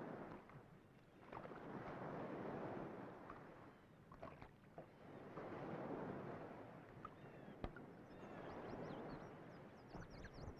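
Ocean surf washing ashore in slow swells of noise that rise and fade every few seconds, with a few faint high chirps near the end.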